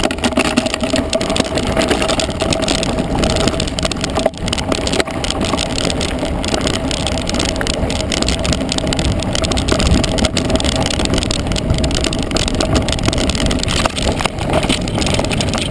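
Mountain bike riding fast down a rough dirt and stony track: tyres on loose ground and the bike and camera mount rattling with many small knocks, over a rumble of wind on the microphone.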